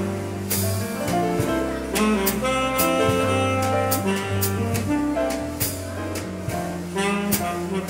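A jazz quartet plays live: a saxophone carries the melody over piano, electric bass guitar and a drum kit, with regular cymbal strokes.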